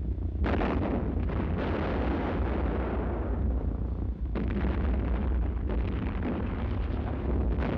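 Heavy anti-aircraft guns firing a barrage, the booming shots running together into a continuous rumble, with fresh blasts about half a second in, at around a second and a half, and just after four seconds.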